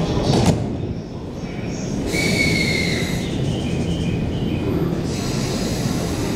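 Shonan-Shinjuku Line commuter train standing at the platform with its doors closed, its equipment giving a steady low hum. There is a click about half a second in, then a thin high tone and a few short high tones in the middle.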